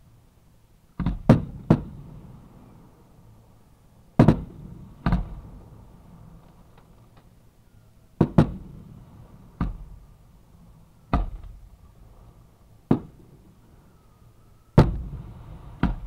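Aerial fireworks going off at close range: about a dozen sharp bangs at irregular intervals, some in quick pairs, each followed by a short echoing tail.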